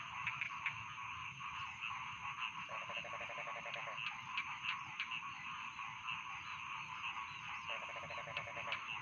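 Chorus of rice-field frogs calling, a dense mass of overlapping croaks and clicks over a steady high tone. Twice, near the middle and near the end, a lower rapid rattling trill of about a second stands out.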